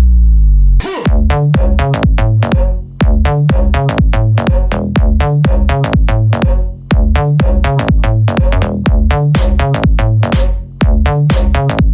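Electronic dance music with a heavy bass and a fast, steady drum-machine beat. It opens on a deep bass sweep falling in pitch, and the beat comes in about a second in.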